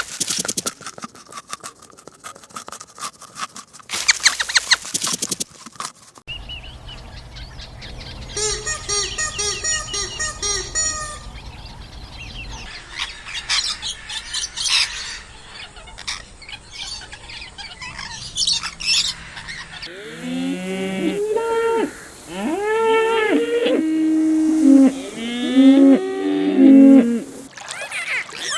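A string of short animal-sound clips cut one after another: rapid clicking and chirping calls first, then bird-like pitched calls. Over the last several seconds comes a run of loud, pitched livestock calls that bend in pitch.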